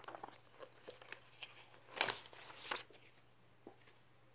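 Faint rustling and crinkling of a paper band being slid off a paperback book and handled, with the two loudest crinkles about two seconds in and shortly after.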